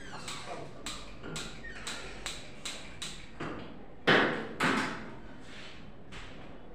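Gas range burner's spark igniter clicking over and over, about two or three clicks a second, then two loud, short rushes of gas as the burner catches alight.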